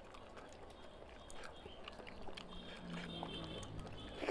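Quiet eating by hand: faint wet clicks of fingers working rice and curry on a paper plate, and of chewing. A short low hum, like a voiced 'mm', comes about halfway through.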